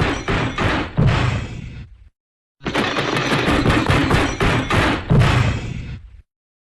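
Cartoon crash sound effect, the MGM 'elephant smash': a rapid clatter of smashing impacts with a heavier thud partway through, then fading. It plays twice, broken off by a short dead silence about two seconds in.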